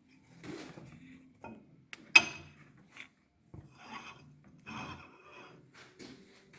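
Scraping and rubbing in several short spells, with one sharp click about two seconds in.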